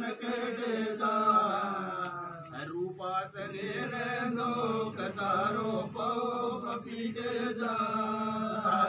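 Men's voices chanting a devotional ardas prayer together, in long sustained phrases that rise and fall in pitch.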